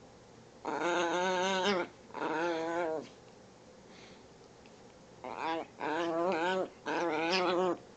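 Chihuahua making drawn-out, wavering whining calls while it plays: five in all, each about half a second to a second long, the last three close together.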